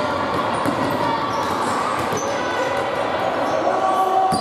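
Basketball game sounds in a reverberant gym: a ball bouncing on the wooden court, sneakers squeaking briefly, and players' and spectators' voices over the play, with a sharp knock near the end.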